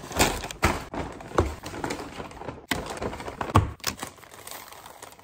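Paper rustling and crinkling in irregular sharp crackles as a McDonald's wrap is pulled from its paper bag and its paper wrapper is peeled open.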